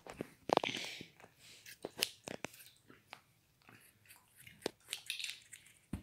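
Phone being handled and rubbed against clothing: scattered soft knocks, clicks and rustles with short quiet gaps.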